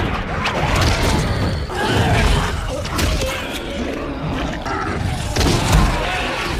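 Film soundtrack of a monster-attack scene: tense music under low rumbling booms and scattered thuds, with wavering pitched cries through it.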